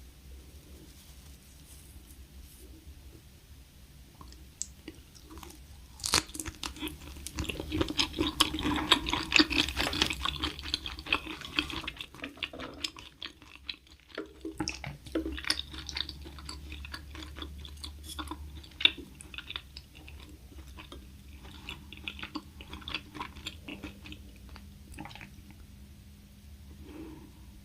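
A person chewing and crunching food close to the microphone: quiet at first, then a dense run of crackling crunches from about six seconds in, a short pause past the middle, then lighter, sparser chewing that tapers off near the end.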